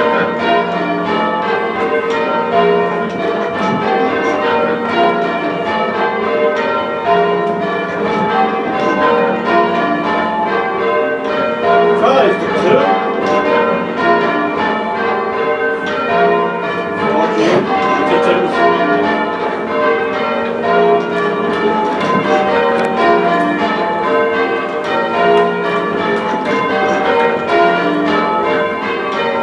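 A ring of six heavy church bells rung full circle in change ringing, one strike after another in a steady, unbroken stream.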